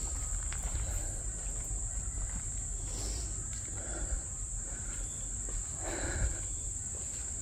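A steady, high-pitched insect chorus, with a few faint rustling sounds about three, four and six seconds in.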